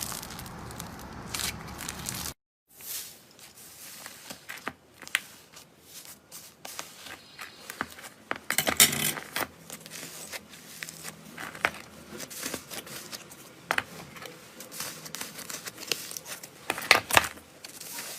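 Slime being squeezed, stretched and poked by hand: a scattered run of sticky clicks, pops and crackles, broken by a short silence a couple of seconds in.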